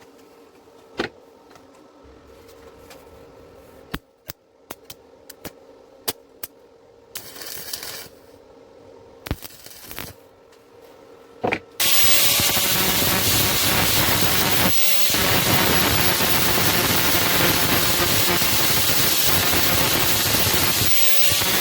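A few light clicks and a short hiss, then, about twelve seconds in, a loud steady hiss starts and runs on, dipping briefly twice.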